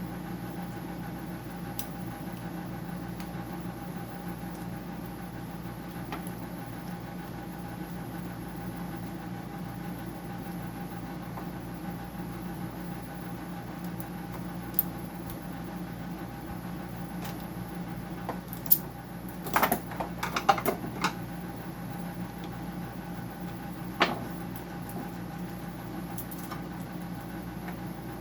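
A steady machine hum throughout, with a handful of sharp metallic clicks and clinks from parts and tools being handled during a dehumidifier teardown, the busiest cluster a little past the middle and a last single click near the end.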